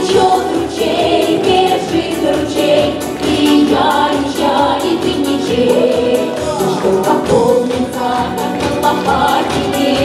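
A Russian folk song performed live: a group of voices singing a brisk, lively tune to accordion accompaniment, over a steady beat.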